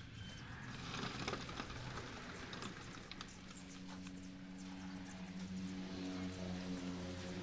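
Scattered clinks and knocks of hand work during a concrete pour, with a steady motor hum joining about three seconds in.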